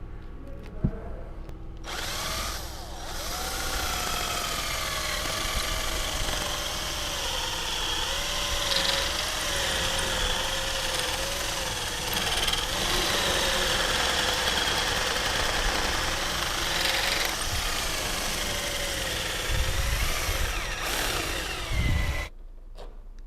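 A power drill boring into the bushing bracket on a Volvo XC90's front anti-roll bar, drilling it out to free the worn bushing. It starts about two seconds in and runs with a wavering whine as the load on the bit changes, then stops suddenly near the end.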